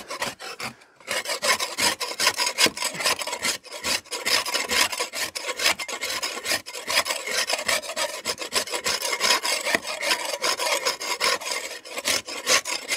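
Steel spade blade scraping and chipping hard render off a brick-and-lime wall panel in rapid strokes, several a second, starting about a second in, with bits of mortar breaking away. The hard grey layer, which the mason takes to contain plastic binder, is being stripped back to the old lime.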